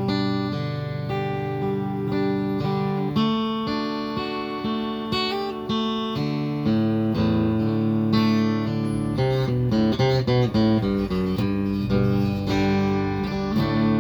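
Squier Telecaster played through its piezo bridge pickups into a Roland Cube 30 amp set to its clean JC-120 channel: chords and single notes left to ring, with a run of quicker, choppier notes about ten seconds in. The piezo gives it a percussive, acoustic-guitar-like tone.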